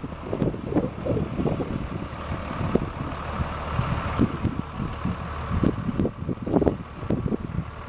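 Wind buffeting the microphone in irregular low gusts over a steady low hum.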